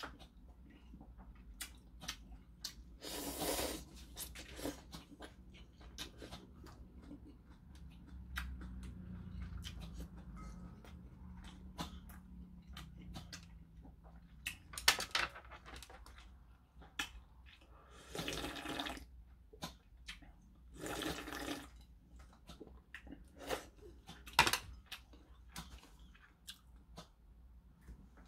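A person eating ramen noodles in kimchi stew: about five wet slurps of noodles and broth, with chewing and small clicks of chopsticks against the bowl in between.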